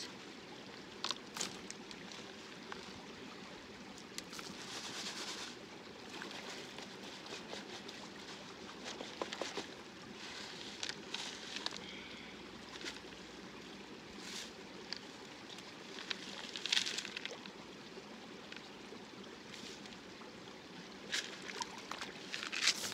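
Shallow creek water running steadily, with scattered splashes and sharp clicks of gravel and rocks being scrubbed by hand in a bucket of water under a classifier screen to wash off clinging mud and sand. Near the end a few louder clatters come close together as the classifier is lifted.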